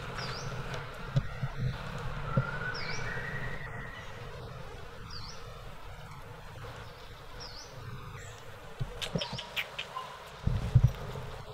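Insects buzzing steadily, with a short high chirp repeating every couple of seconds. A few low thumps and rustles come at the start and again, loudest, near the end.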